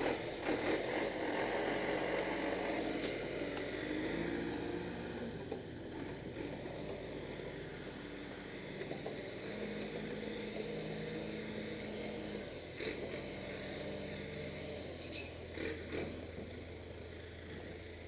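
John Deere 310D backhoe's diesel engine running as the machine drives across a dirt lot, its pitch stepping up and down and the sound fading as it moves off. A few brief sharp clicks are heard over it.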